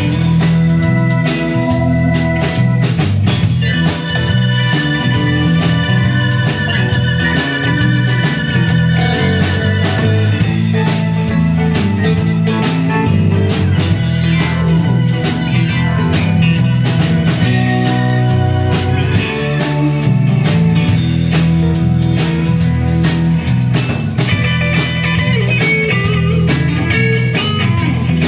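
Live rock band playing: electric guitars over a bass guitar and a drum kit keeping a steady beat.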